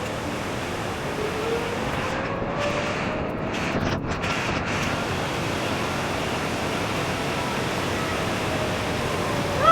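Steady rush of a large waterfall on the Mekong, heard as an even roar of water. A faint hum slowly rises and falls in pitch beneath it.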